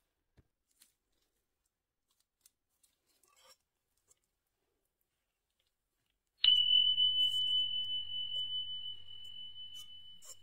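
A single bell-like ding about six and a half seconds in: one high, pure ringing tone that starts sharply and slowly fades away. Before it there are only a few faint ticks.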